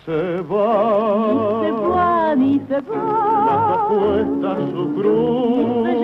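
Music with a singer holding long, wavering notes with strong vibrato, over a low beat about twice a second.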